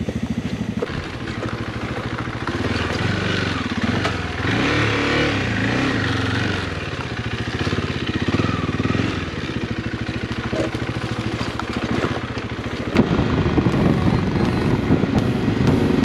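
Motorcycle engine running and being revved, its pitch rising and falling as the bike works its way off over rocks. About thirteen seconds in it turns louder and rougher as the bike rides along a dirt track.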